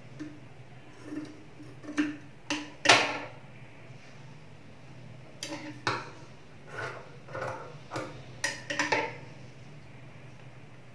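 Handling noise at an industrial sewing machine's table: scattered sharp clicks and knocks of scissors and fittings, with cloth rustling between them. The loudest knock comes about three seconds in, and a quick cluster follows near the end. A steady low hum runs underneath.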